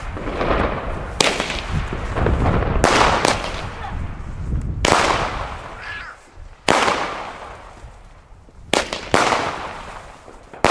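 Category 2 consumer fireworks firing a series of about eight shots at irregular intervals of one to two seconds, some in quick pairs. Each shot is a sharp bang that trails off in echo.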